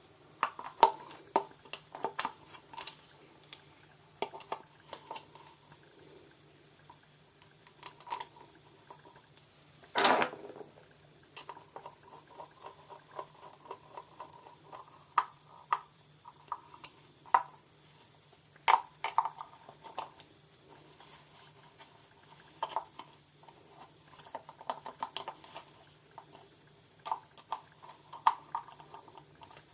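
Irregular clicks, taps and clinks of small hard plastic and metal parts of an LED disco bulb being handled and fitted together, with one louder knock about ten seconds in and a faint low hum underneath.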